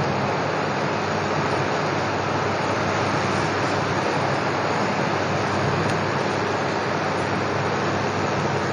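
Sugar syrup boiling in an aluminium pan, a steady rushing noise with a faint low hum under it.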